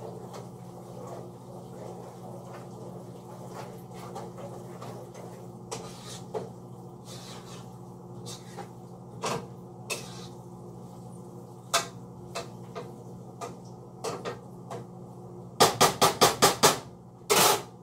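Wooden spoon stirring in a pot on the stove, with scattered light knocks against the pot over a steady low hum. Near the end the spoon is knocked on the pot about six times in quick succession, followed by one louder, longer clatter.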